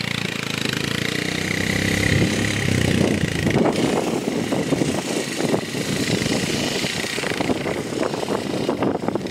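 Quad bike engine running close by, then fading after about three seconds as the bike pulls away; crackling wind buffeting on the microphone takes over for the rest.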